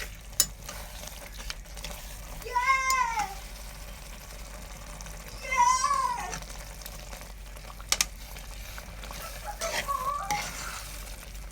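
A cat meowing three times, each meow rising then falling, over soft stirring sounds from the soup pot. Two sharp clicks stand out, one just after the start and one about eight seconds in.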